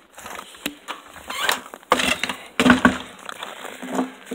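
Crunching footsteps in hard-frozen snow, irregular, with a few louder crunches and scrapes near the middle.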